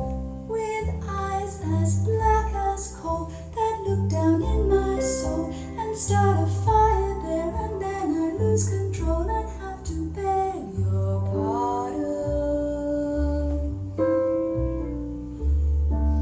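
Recorded music playing through home-built four-way loudspeakers, picked up by a phone: a passage with no sung words, a bass line stepping note by note under a melodic lead.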